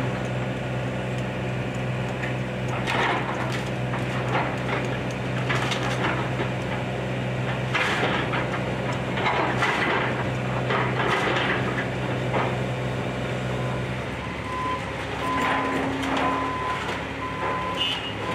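Case excavator's diesel engine running steadily while the machine breaks up the house's timber, with repeated cracks and crashes of splintering wood. About 14 seconds in the engine note drops, and a backup alarm starts beeping, about two beeps a second.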